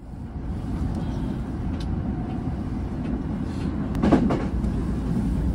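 Commuter train running, heard from inside the carriage: a steady low rumble of the car on the rails, with a brief knock a little after four seconds in.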